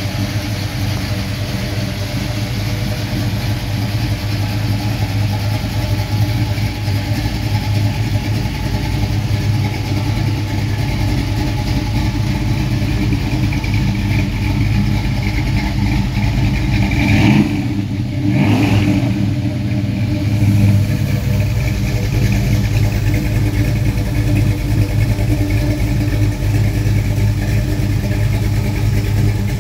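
1966 Chevrolet Nova's engine idling steadily, with a brief blip of the throttle about halfway through.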